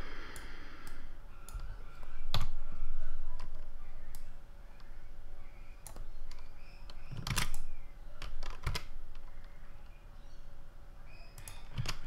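Scattered clicks of a computer keyboard and mouse at irregular intervals, the loudest a quick pair about seven seconds in.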